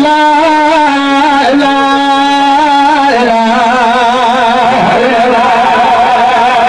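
Zikr (Sufi dhikr) chant sung by one voice in long, wavering, ornamented notes over a steady lower held tone. The pitch of the voice and of the tone beneath it shifts about three seconds in.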